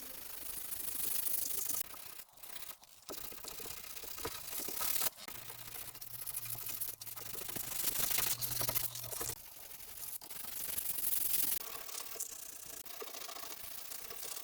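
Sandpaper rubbing back and forth over cured body filler on a car's steel rear panel, a scratchy stroking sound with a few brief pauses between runs of strokes: finer-grit sanding to smooth the filler.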